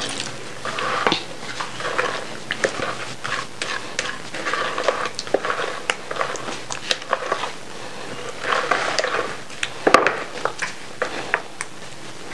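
Metal spoon stirring thick blended black-eyed pea batter in a plastic bucket. Wet squelching with irregular clicks and knocks of the spoon against the bucket.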